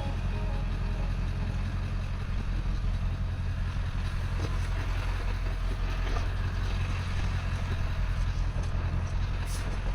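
Motor vehicle running, a steady low rumble with an even haze of road noise.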